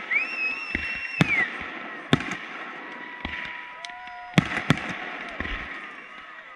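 Fireworks display: aerial shells bursting in repeated sharp bangs, about one or two a second, over a continuous crackle. High whistling tones rise and hold for a second or more at a time.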